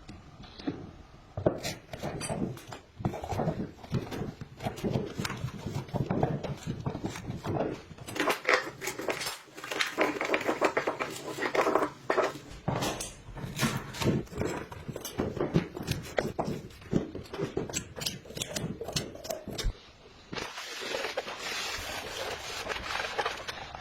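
Irregular clinks, knocks and scrapes of hard parts being handled and worked on, with a steady hiss from about twenty seconds in.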